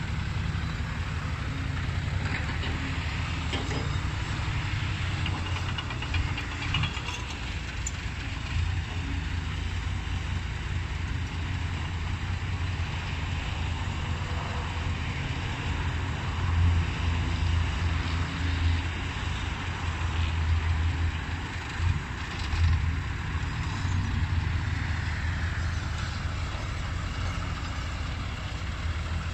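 Heavy diesel engines running steadily as a Kobelco SK140 excavator works beside a Hino dump truck waiting to be loaded, the engine note swelling louder a few times past the middle.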